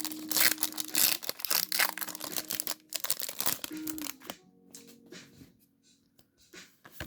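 Foil booster-pack wrapper crinkling and tearing as it is handled and opened, dense crackling for about four seconds that then dies down to a few faint rustles. Soft background music plays underneath.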